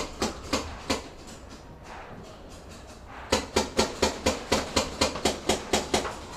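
Paintball gun shots: a few sharp shots in the first second, then after a pause a rapid string of about a dozen shots at roughly five a second.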